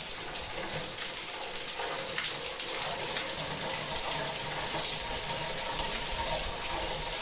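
Spring water falling steadily from two brass cow-head spouts into a stone tank, with faint splashes as a man puts his hands under the stream.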